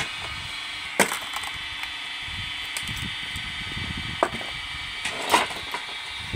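Electric motor of a rack-and-pinion log splitter running with a steady hum while a log splits on the wedge: a loud sharp crack about a second in, then a smaller crack and a burst of splintering around four and five seconds in.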